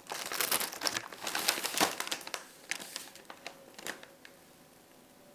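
Plastic packaging crinkling as it is handled, dense crackling for about two seconds, then a few scattered crackles that die away about four seconds in.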